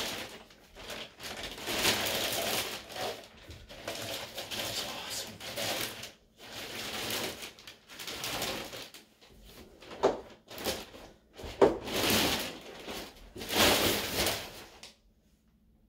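Clear plastic bag crinkling and rustling in bursts as it is pulled off a guitar speaker cabinet, with a couple of sharp knocks about ten and twelve seconds in.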